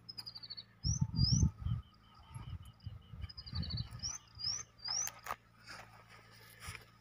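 A songbird repeats the same short phrase about every two and a half seconds: a quick run of falling high notes, then three rising whistles. Low rumbling noise, loudest about a second in, comes and goes under it, with a few clicks near the end.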